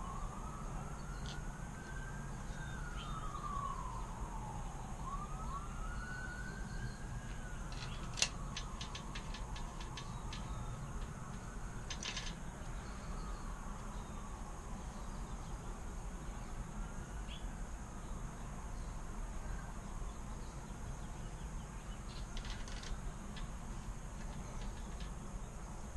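Faint wailing siren, its pitch slowly rising and falling about once every five seconds and fading over time. A few light clicks from parts being handled can be heard, notably about eight and twelve seconds in.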